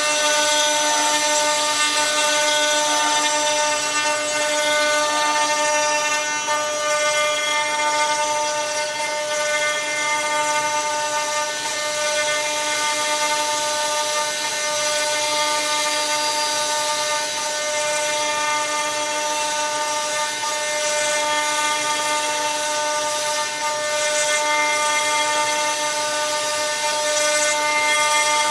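CNC router spindle running with a steady whine as its bit mills a block of wood into rounded pegs, with a constant hiss of cutting.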